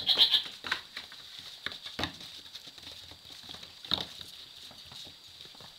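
Nigerian Dwarf goat kids' small hooves scampering on a dirt and straw barn floor: quick, irregular pattering taps, loudest just after the start and again about four seconds in.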